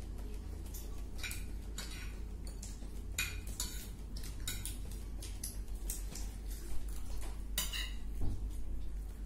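Eating utensils clinking and scraping against a dish in short, irregular clicks while eating.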